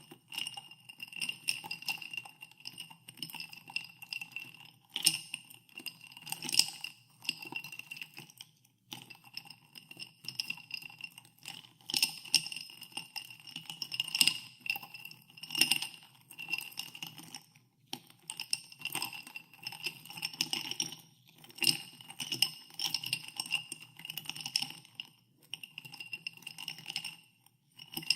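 Ice cubes being stirred in a glass of carbonated water, clinking against the glass in rounds about every two seconds, with the glass ringing at a few fixed high pitches after each knock.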